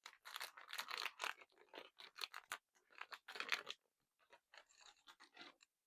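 A chocolate bar's wrapper crinkling and tearing as it is opened by hand, in irregular bursts of crackle that stop shortly before the end.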